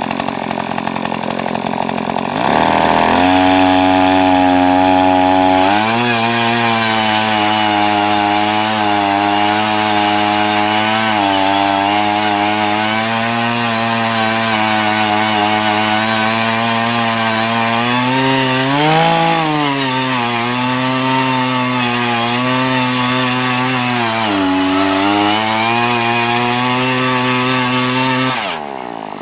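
Earthquake E43 one-man auger's 43cc two-stroke engine revving up from idle about three seconds in and running at full throttle as the bit bores a post hole through wet clay and roots, its pitch sagging and recovering a few times under the load. It drops back toward idle near the end.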